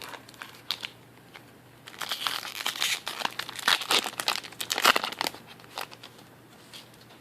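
Foil wrapper of a Magic: The Gathering booster pack crinkling as it is handled and torn open, in a dense burst of about three seconds starting about two seconds in, with a few light clicks before and after.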